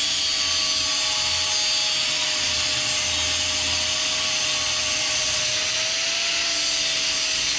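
Electric angle grinder with a thin cut-off disc running at steady speed: a constant motor whine that wavers slightly, over a bright hiss.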